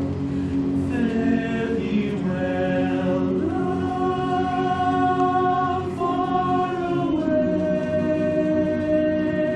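Barbershop chorus singing a cappella in close harmony, holding sustained chords that change every second or two.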